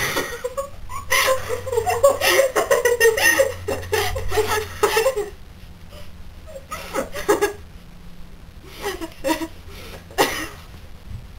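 Girls laughing, hard and continuous for about five seconds, then breaking into short giggles a few more times.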